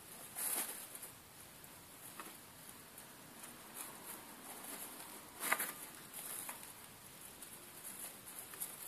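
Faint, scattered rustling and scratching in dry hay bedding as 20-day-old baby mice shift about in their nest. A louder rustle comes about five and a half seconds in.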